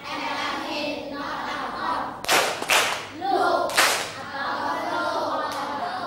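A class of children chanting an English rhyme together and clapping in unison on the beat. The clap strokes fall twice a little past two seconds in and once more about a second later.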